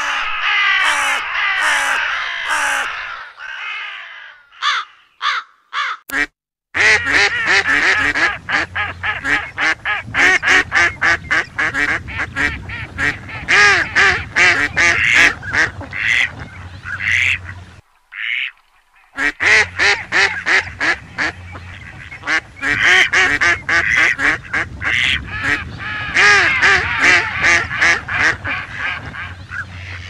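Crows cawing for the first few seconds, then ducks quacking in a dense, rapid run of calls, broken by a short pause a little past halfway.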